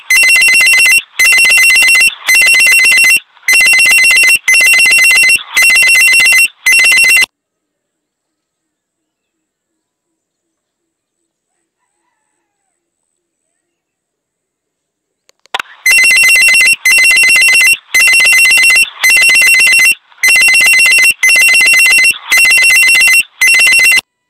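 Electronic ringtone-like alert sounding loudly in pulses of about one a second. It stops about seven seconds in and starts again after about eight seconds of silence.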